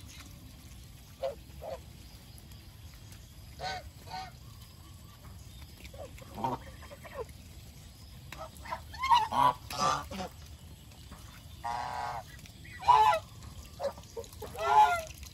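Domestic geese honking in short, scattered calls that come more often and louder from about nine seconds in, with one longer drawn-out call near twelve seconds.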